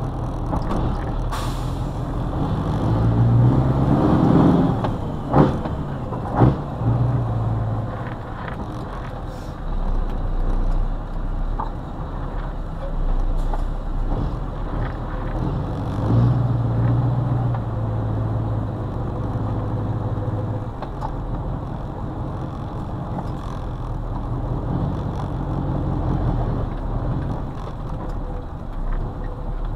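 Scania 142M's intercooled V8 diesel engine running under the cab as the truck is driven slowly, heard from inside the cab. The engine revs up and drops back around four seconds in, with two short sharp sounds about five and six seconds in, then runs on steadily, a little louder for a few seconds past the middle.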